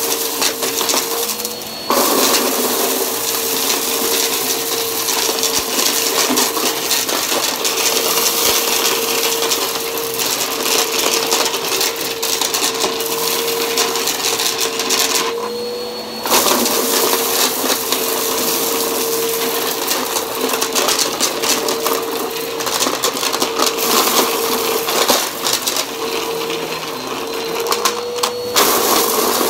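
Bagless Bissell upright vacuum cleaner running on carpet: a steady motor whine under a dense crackling rattle of small hard debris being sucked up. Three times, about two seconds in, midway and near the end, the rattle drops out for a moment and the motor's pitch rises slightly.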